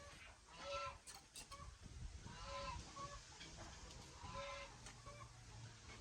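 Farm poultry calling: a string of short, pitched calls, each lasting under half a second and coming about once a second.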